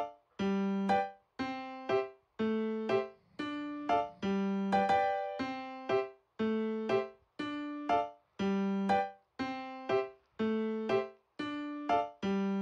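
Background music: a light keyboard tune of struck notes, about two a second, each fading quickly.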